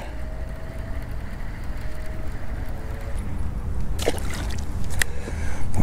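A cast with a baitcasting reel: the spool whirs faintly as line pays out, then the 1/2 oz blade bait splashes into the water about four seconds in, followed by a short click about a second later.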